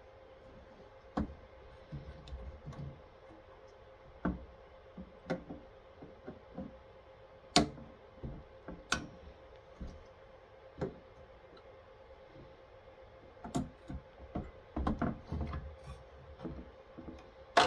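Irregular clicks and sharp snaps of diagonal cutters prying at the spring-loaded heat-sink push pins on a Cisco switch's circuit board. The two sharpest snaps come a second or so apart about halfway through, as pin springs let go, and a quick run of clicks follows near the end.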